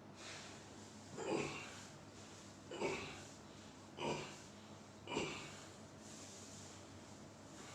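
A person breathing hard, four short forceful breaths about a second apart, as during a chiropractic treatment where the patient is told to take deep breaths.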